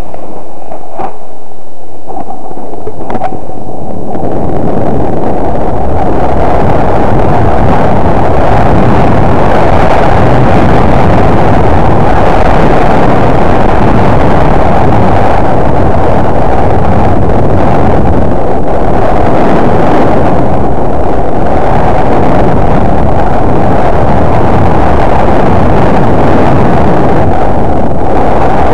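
Loud, rough wind buffeting on the camera microphone while riding down a snow slope. It sets in about three seconds in, after a couple of sharp clicks.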